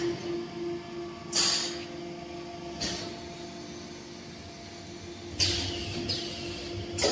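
Static mixing machine with multiple dosing units running its automatic dosing cycle: a steady hum from its electric-motor hydraulic pump unit, broken by four short hisses, one of them tailing off with a falling hiss.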